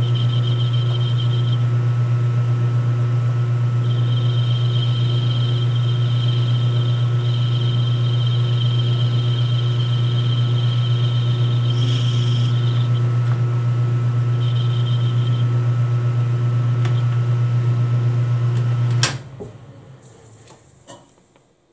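Metal lathe running with a steady motor hum while a finishing cut is fed by hand, a high thin whine coming and going over it. About nineteen seconds in there is a click, the hum stops and the lathe spins down.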